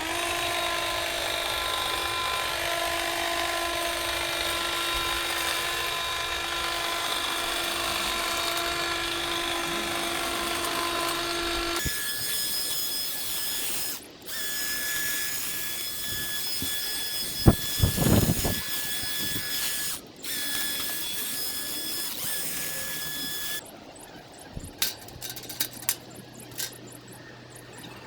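Garden power tools running at a steady whine in a string of clips, each cut off abruptly, with a few loud knocks partway through.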